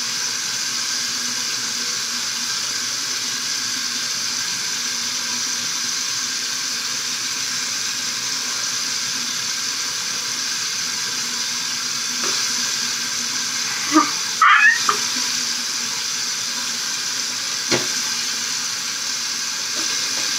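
Tap water running steadily into a bathroom sink, a constant hiss. A few brief knocks and squeaks stand out over it about two-thirds of the way through.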